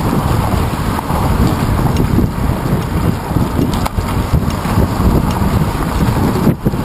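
Wind buffeting the microphone of a moving handlebar-mounted GoPro Hero 2 on a bicycle: a loud, steady rumble, with road traffic mixed in. It drops briefly near the end.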